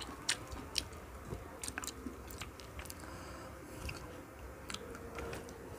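A person chewing pineapple, with soft wet mouth clicks and smacks scattered through.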